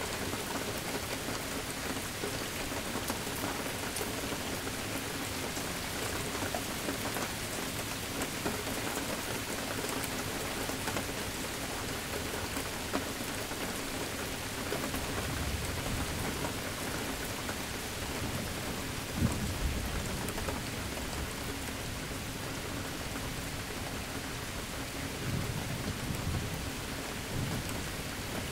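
Steady rain falling, with low rumbles of distant thunder about halfway through and again near the end.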